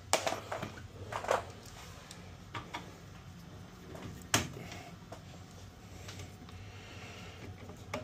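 Scattered clicks and knocks of tools and metal parts being handled while a furnace's panel and wiring are put back together, the loudest a little past four seconds in, over a faint steady low hum.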